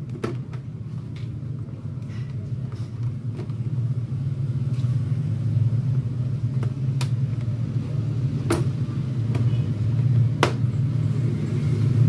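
Sharp plastic clicks, a second or two apart, as an LED TV's plastic frame is pried loose and its clips let go, over a steady low rumble.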